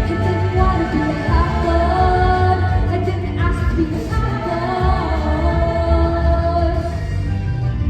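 Musical-theatre ensemble singing with instrumental accompaniment, several voices holding long sustained notes over a steady bass.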